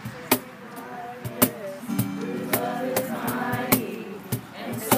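A group of young voices singing a worship song, accompanied by acoustic guitar and sharp slaps on a cajon. The singing grows fuller about two seconds in.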